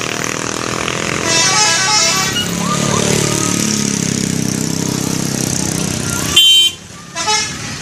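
Subur Jaya super-high-deck bus's musical 'telolet' multi-tone horn playing a quick run of stepped notes over its running engine, with a second loud short horn blast near the end.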